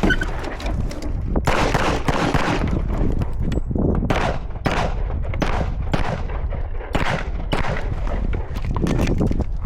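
A firearm fired repeatedly in a string of sharp shots, many about half a second apart, with a denser flurry about two seconds in, as the shooter works through an IDPA stage.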